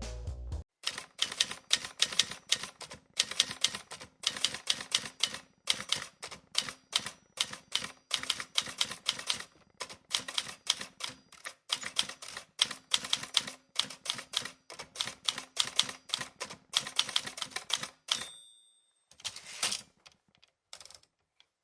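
Typewriter keys clacking in rapid bursts of strikes with short pauses between them. Near the end a short bell-like ring sounds, the typewriter's margin bell, followed by a few scattered clacks.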